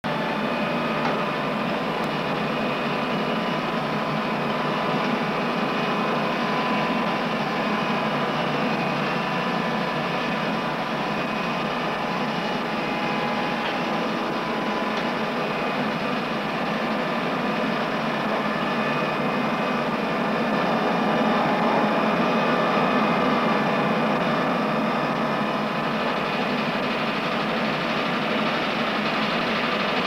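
Steady machinery hum and whir with several held tones, rising slightly in level for a few seconds about two-thirds of the way through.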